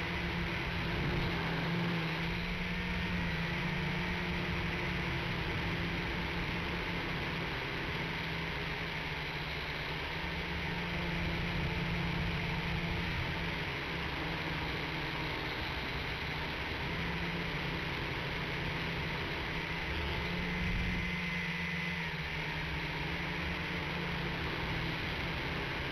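WLtoys V959 quadcopter's motors and propellers buzzing steadily, picked up close by its onboard camera's microphone with a layer of hiss; the pitch and level waver slightly as the throttle changes.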